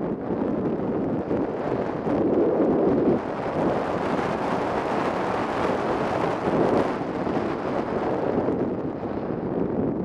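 Wind rushing over the onboard camera of a radio-controlled Ka 8b scale model glider in flight, a steady noisy rush with no engine tone. It swells and brightens in the middle and eases again near the end.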